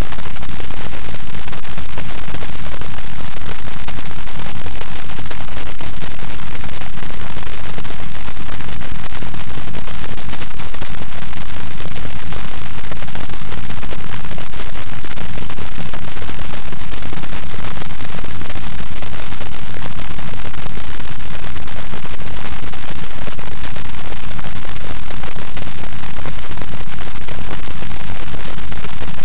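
Loud, steady static hiss close to full volume, even and unbroken throughout, with no voice or other sound heard through it.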